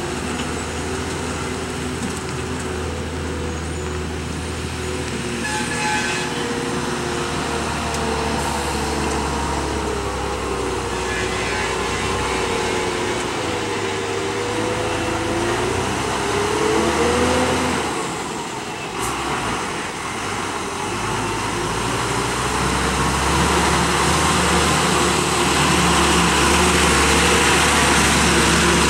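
Heavily loaded truck's diesel engine running under load as it crawls round a tight hairpin bend, its pitch rising and falling. The engine dips briefly about two-thirds of the way through, then grows louder as the truck draws near.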